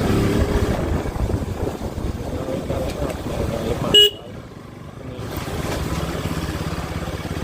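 Motorcycle engine running with a low, even pulse, and a short horn toot about four seconds in. After the toot the engine runs quieter and steadier.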